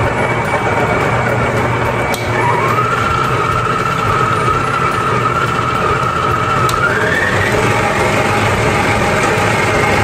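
Cutie Mixer stand mixer motor running steadily as its dough hook kneads bread dough. A whine rises in pitch about two seconds in, holds, and climbs again around seven seconds, with a single click just before the first rise.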